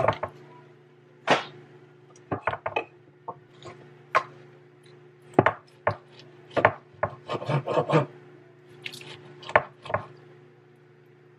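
Knife and metal tongs clicking, knocking and scraping on a wooden cutting board while a cooked tri-tip roast is sliced, in irregular taps and scrapes.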